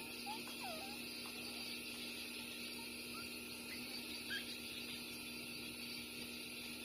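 Newborn puppies, six days old, squeaking while nursing: a few short, high squeaks in the first second and a couple more around three to four seconds in, over a steady background hum.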